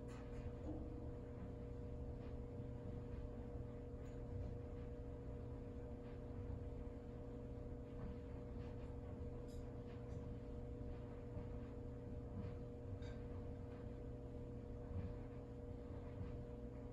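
Quiet indoor room tone: a steady low electrical hum with a few faint ticks.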